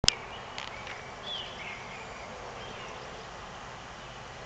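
A sharp click right at the start, then a few faint bird chirps with short gliding whistled notes over steady outdoor background noise.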